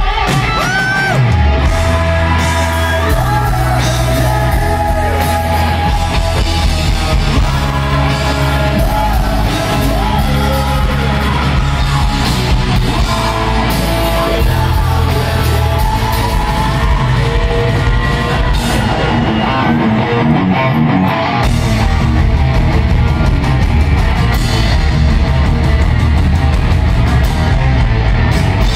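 Heavy rock band playing live at full volume: distorted electric guitars, bass and drums with sung and shouted vocals, heard from the crowd in a large, echoing arena.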